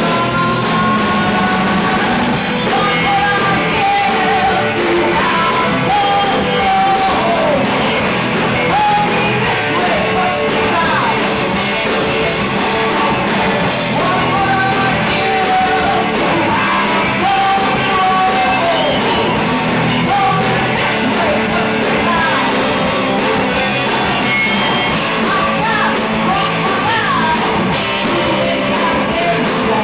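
Live rock band playing: a woman sings lead over electric guitars, bass guitar and a drum kit.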